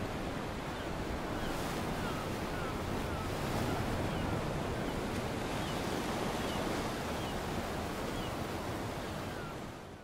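Sea surf washing against a rocky shore, a steady rushing noise with faint short chirps over it, fading out at the very end.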